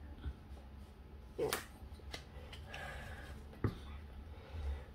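Quiet handling of a small stack of Pokémon trading cards, with a few soft clicks and taps and one sharper tap about three and a half seconds in.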